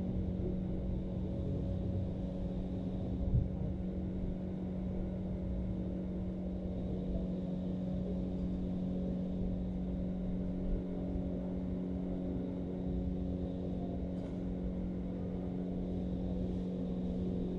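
Steady low machine hum with a constant drone and a rumble underneath, and a single brief knock about three seconds in.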